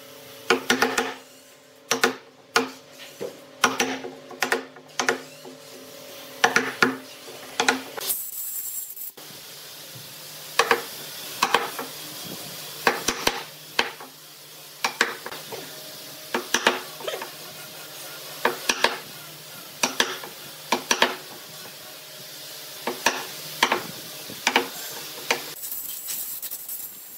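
A wooden mallet knocks on a steel wood chisel in an uneven series of sharp strikes, about one or two a second, as the chisel cuts a recess into a wooden slab, with scraping as the chisel pares out chips. A compressed-air blow gun hisses briefly twice, about a third of the way in and near the end.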